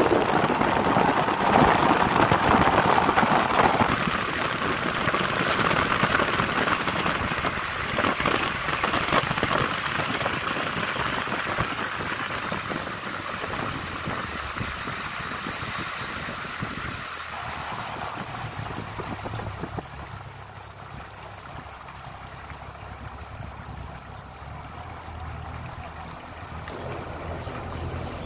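Yamaha 60 hp outboard motor driving the boat at speed with a loud rush of wind and spray, then throttled back: the rush fades steadily and the engine's low, steady hum comes through at slow speed from about two thirds of the way in.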